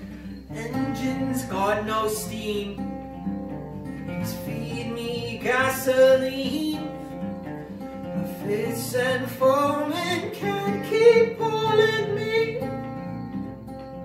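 Acoustic guitar played live, notes picked and strummed in a slow flowing pattern, with a voice singing long wordless notes that slide upward over it several times.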